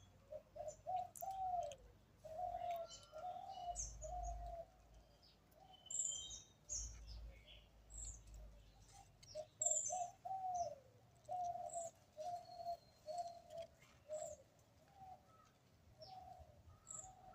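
Birds calling: a repeated run of short, low cooing notes in phrases, with sharp high chirps scattered over them.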